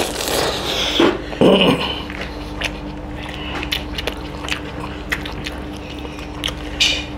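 Close-miked eating by hand of chicken curry and rice: wet chewing with many short lip smacks and mouth clicks, a couple of louder mouth noises in the first two seconds and a short slurp near the end. A faint steady hum runs underneath.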